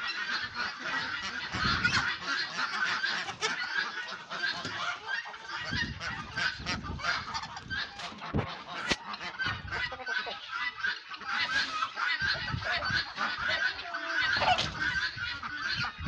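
A mixed backyard poultry flock of ducks, guinea fowl and chickens calling all at once at feeding time. Many short, overlapping honks and cackles keep up without a break.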